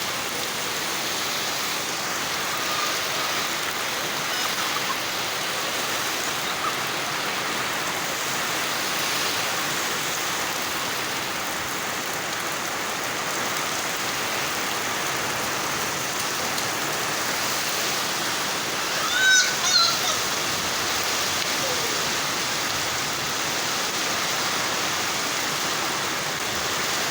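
Rain pouring down steadily, an even rushing hiss with no break. About two-thirds of the way through there is a brief high-pitched vocal cry.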